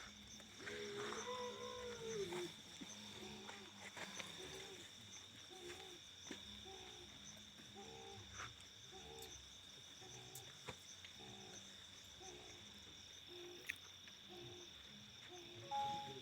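Crickets make a faint, steady high trill. From about three seconds in, a low call repeats roughly every half second.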